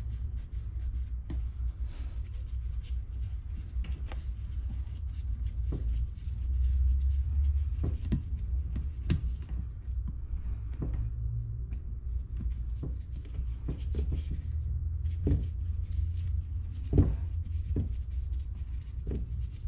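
Scattered clicks and knocks of parts and hand tools being handled while the ATV's airbox and air intake are refitted and tightened, over a steady low hum.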